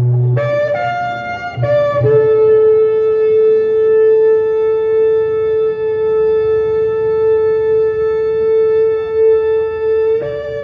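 Shofar blown: a few short notes jumping in pitch, then one long held blast of about eight seconds, breaking back into short notes near the end.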